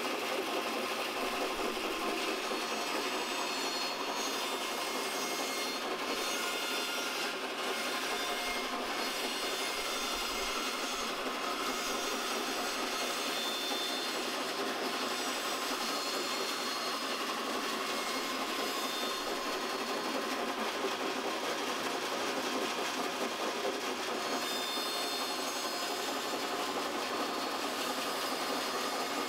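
Vintage cast-iron bandsaw running steadily as its blade cuts through timber.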